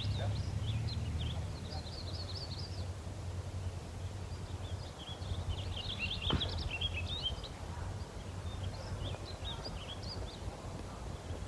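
Small birds chirping and twittering in quick high notes, in several bursts, over a steady low rumble, with a single knock about six seconds in.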